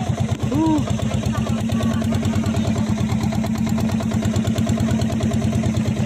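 Engine of a motorized outrigger boat (bangka) running steadily under way, with a fast, even pulsing beat.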